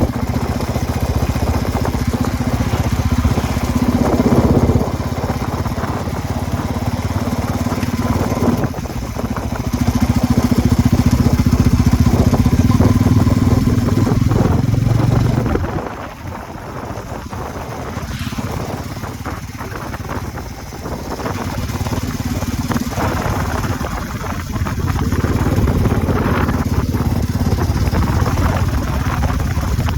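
Bajaj Pulsar N250's single-cylinder engine running, with the revs rising and falling. It is quieter for several seconds past the middle. Noise from the drive chain and sprockets is mixed in, the chain-set problem this bike has.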